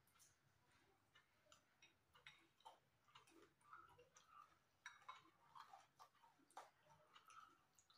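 Faint eating sounds: scattered small clicks and smacks of mouths chewing and of a spoon in a bowl, coming at irregular moments.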